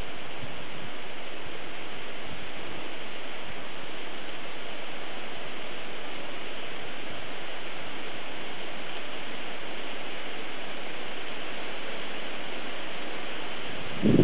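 Steady, even hiss that does not change in level. Near the end a louder rustling sets in.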